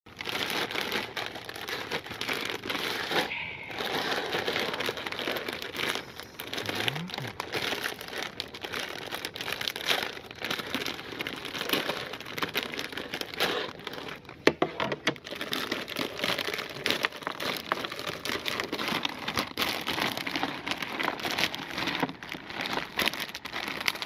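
Plastic Parle-G biscuit packets crinkling and rustling as they are handled and torn open, with many small crackles.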